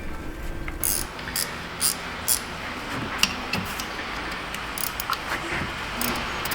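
Irregular metallic clicks and clinks of hand tools working a bolt in an engine bay, with a faint rustle between them.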